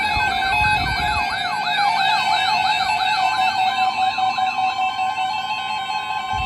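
Electronic alert sirens, several layered tones yelping up and down rapidly, about three to four sweeps a second, over steady alarm tones, with a low rumble near the start.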